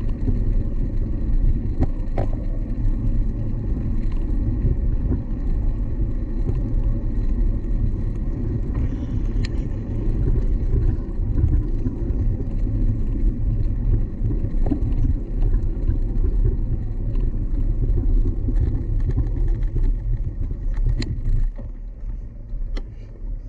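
Steady low rumble that eases off near the end.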